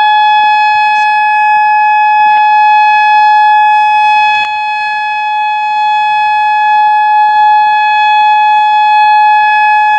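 Whelen 2016 electronic civil defense siren sounding a loud, steady single tone for a siren test. Its loudness dips briefly about four and a half seconds in.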